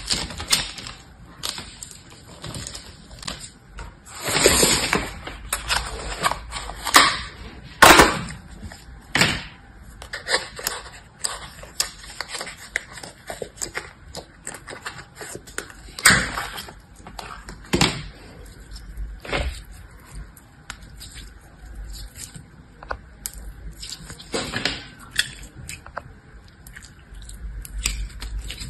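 Hands squishing bead-filled crunchy slime (floam), giving an irregular crackle of small clicks and pops with a few louder crunchy bursts. Later a plastic tub of yellow jelly slime is handled and the slime is pulled out of it.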